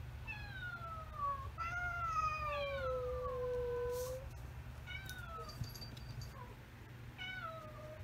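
A cat meowing four times, each call falling in pitch. The second meow is long and drawn out.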